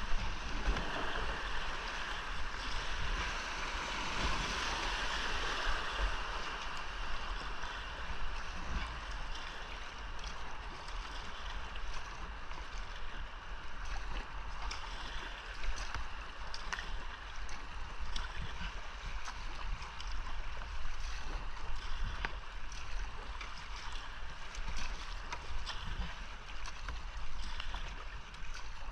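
Rushing whitewater of a creek rapid heard close from a kayak, with short splashes and knocks scattered through it, typical of paddle strokes; the rush is loudest in the first several seconds, then steadier and a little quieter.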